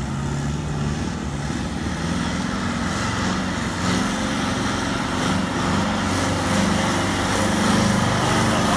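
Modified Farmall tractor engine running hard under load as it pulls a weight sled, its pitch fairly steady and growing a little louder toward the end.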